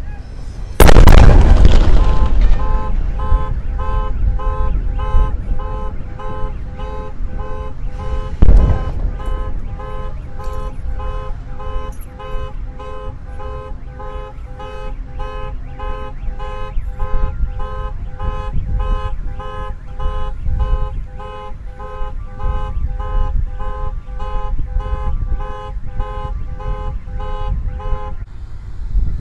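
Deep boom of a SpaceX rocket prototype exploding on its test stand, heard from about a quarter mile away, about a second in, with a second sharp boom some seven seconds later. A car alarm then starts up and repeats its pulsing tone about twice a second until near the end.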